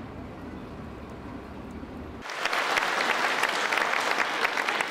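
Audience applauding, starting abruptly a little under halfway through, louder than the steady low background noise before it.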